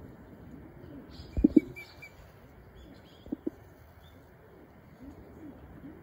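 A dove cooing in short low paired notes, repeated about every two seconds, with a few faint high chirps from small birds about a second in.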